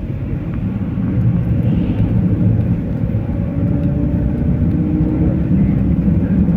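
Steady low rumble of a moving vehicle, with a faint engine hum running through it.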